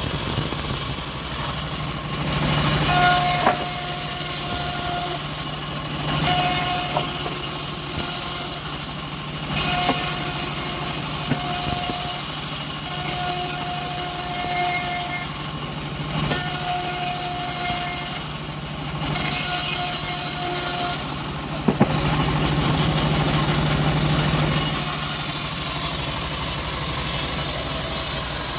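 Homemade bandsaw mill sawing through teak over a steady engine hum. The cutting noise swells and drops back every few seconds.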